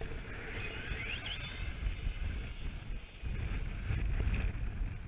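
Wind buffeting the camera microphone as a low rumble, loudest about four seconds in, over the brushless electric motor of a 1/10 RC short course truck, which whines up in pitch about a second in as it accelerates on concrete.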